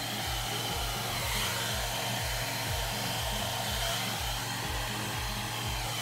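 Handheld hair dryer running steadily, a continuous rush of blown air with a faint high whine, as it is aimed at hair.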